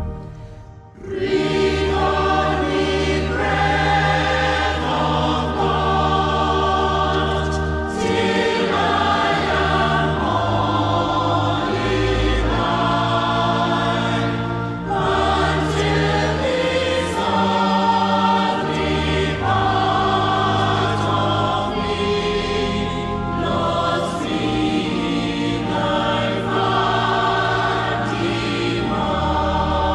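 A choir singing a gospel song with instrumental accompaniment and sustained low bass notes. The music dips briefly at the very start and comes back in about a second in.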